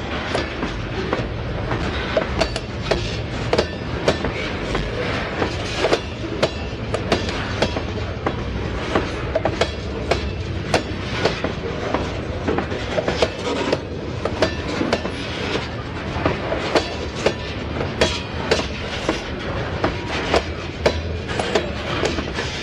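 Freight train of covered hopper cars rolling past close by: a steady rumble of wheels on rail, with a run of sharp wheel clicks over rail joints, a few each second.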